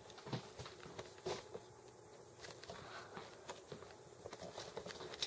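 Faint scattered clicks, knocks and rustles of a handheld camera being moved and carried about, with a couple of slightly louder knocks near the start.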